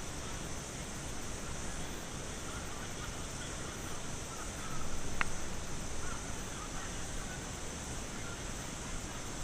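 Steady outdoor background noise with faint, distant wavering calls and a single sharp click a little past halfway.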